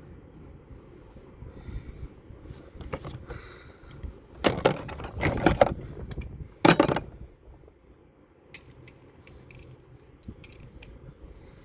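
Metal hand tools and engine parts clinking and scraping, with a few louder clattering handlings about halfway through.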